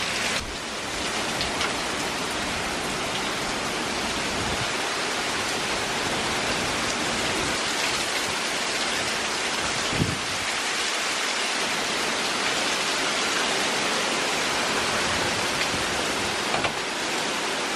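Heavy hurricane rain pouring down, a dense steady hiss with no letup, with one short knock about ten seconds in.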